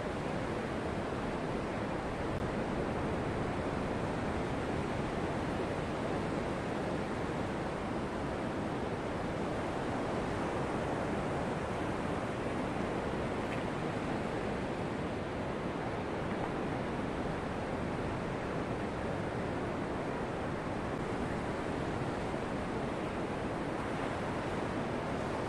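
Ocean surf breaking on the beach, a steady wash of noise with no separate events.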